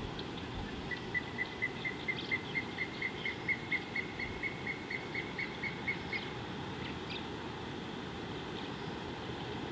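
A bird calling: a run of about twenty short notes on one pitch, about four a second, growing louder and then fading, over a steady low background rumble.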